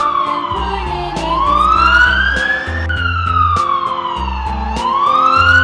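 Police car siren sweeping slowly down in pitch and back up, then dropping back to start the cycle again, over children's background music with a bass beat.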